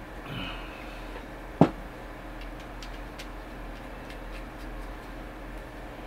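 Quiet room tone with a steady low hum, broken by one sharp click about one and a half seconds in and a few faint ticks after it.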